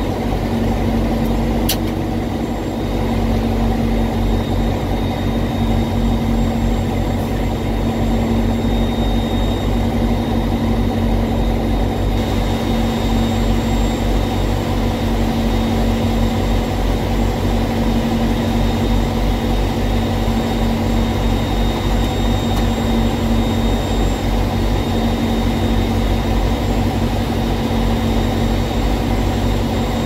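A diesel engine idling steadily, with a strong low hum. There is a single sharp click about two seconds in.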